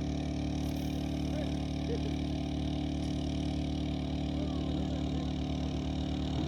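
A machine's engine running steadily, a constant droning hum that does not change in pitch or loudness.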